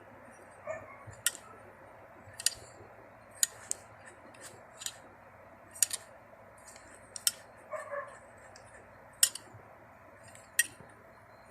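Thread tap being worked by hand into a mounting hole in the bike engine's case: sharp metallic clicks, roughly one a second, with a couple of brief squeaks, as the tap is turned through the cut with cutting oil.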